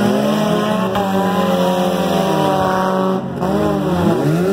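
Demolition derby cars' engines revving hard, several at once, their pitch rising and falling as the drivers push and ram on the dirt. A short lull comes about three seconds in, then the revs climb again.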